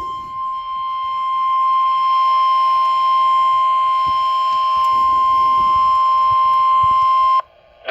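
NOAA Weather Radio warning alarm tone, a single steady 1050 Hz tone held for about seven seconds and then cut off abruptly. It is the alert signal that sets off weather radio receivers before a warning message is read.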